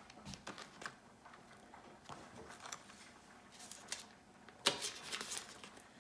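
Faint clicks, scrapes and paper crinkles of a table knife cutting pats from a stick of butter in its paper wrapper and setting them on slices of bread, with a louder flurry of scrapes a little before five seconds in.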